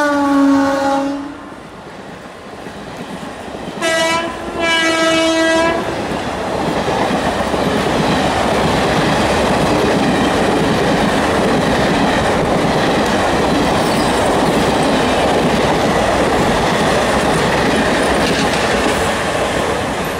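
Indian Railways express train sounding its horn as it comes through the station: a blast fades out at the start, then a short and a longer blast about four seconds in. After that comes the steady rumble and wheel clatter of the coaches passing at speed.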